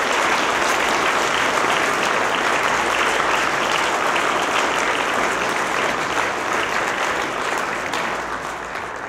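Audience applauding, a dense steady clapping of many hands that begins to die away near the end.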